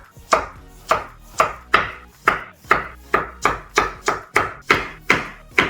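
Kitchen knife slicing through a zucchini and striking a cutting board, about three cuts a second in a steady rhythm.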